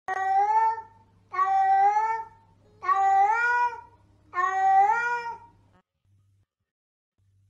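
A cat meowing four times: long, drawn-out meows of about a second each, evenly spaced about a second and a half apart.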